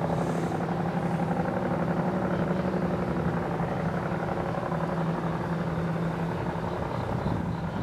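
Diesel locomotive engines of an approaching freight train (Norfolk Southern SD70ACEs) running steadily in the distance. The sound is a low, even engine drone with a rapid pulse.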